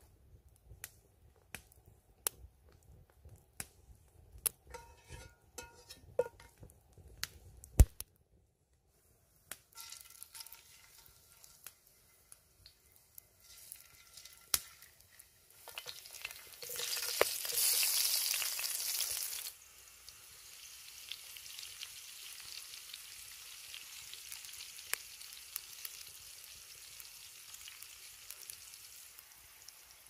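Sharp, scattered pops and crackles. Then, about sixteen seconds in, chunks of raw potato are dropped into hot oil in a cast-iron skillet: a loud burst of sizzling for a few seconds, settling into a steady, quieter sizzle of shallow frying.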